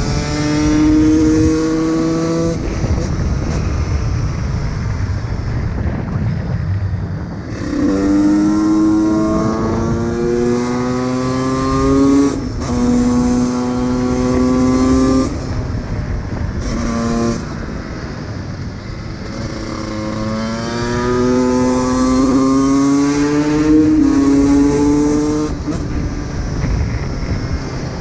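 2006 Honda CR125 motard's two-stroke single-cylinder engine accelerating hard through the gears: each gear is a rising pitch, broken by a sudden drop at the shift. There are several such pulls, with lower running between them and a short throttle blip in the middle.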